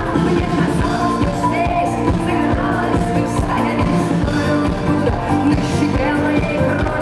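Live rock band playing a song, with drums keeping a steady beat under guitars and a woman singing.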